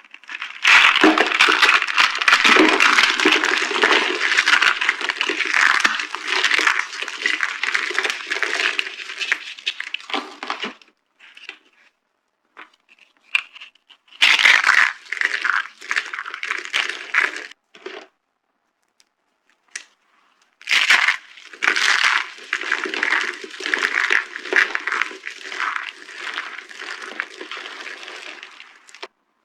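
Dry soap being crushed by hand, a dense run of crunching and crackling. It comes in three long stretches separated by short pauses.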